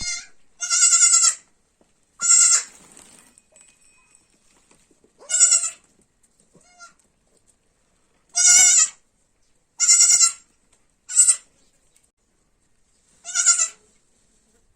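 Baby goat (kid) bleating: about eight short, high, quavering bleats at irregular intervals, with quiet gaps between them.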